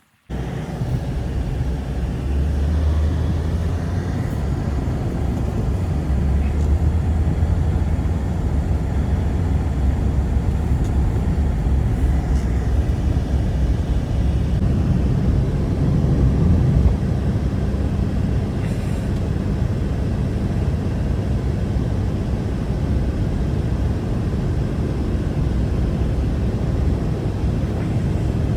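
Steady low rumble of strong wind, starting abruptly and continuing without a break.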